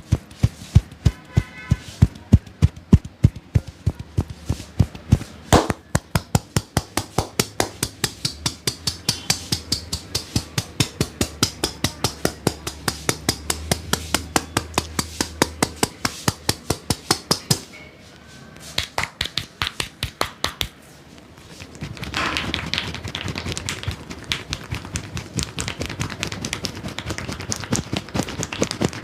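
Rhythmic percussive massage: a barber's hands slapping and tapping a client's head and shoulders at about four strokes a second, with a brief pause partway. Near the end the strokes turn into a faster, softer patter mixed with a rubbing sound.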